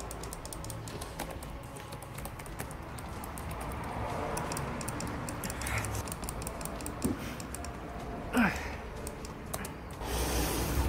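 Computer keyboard keys clicking in quick, irregular strokes during gaming, over faint music. A short falling sound comes about eight and a half seconds in.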